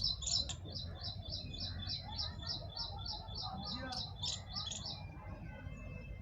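A small bird chirping over and over, about three high chirps a second, stopping about five seconds in. A low rumble runs underneath.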